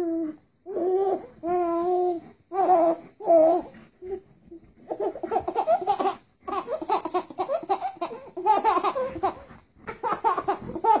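A baby squealing: about five short, pitched happy cries in the first few seconds, then a long stretch of quick, chopped laughter.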